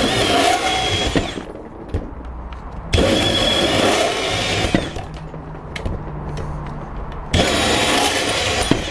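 Milwaukee M18 FUEL brushless compact band saw (2829) running and cutting through half-inch steel EMT conduit, started slow. The cutting noise swells and eases three times, with a steady motor hum in the quieter stretches.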